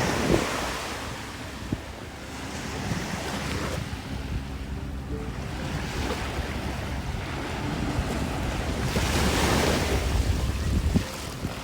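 Small waves washing up on a sandy beach, with wind buffeting the microphone as a low rumble. One wash swells at the start and a larger one rises and falls near the end.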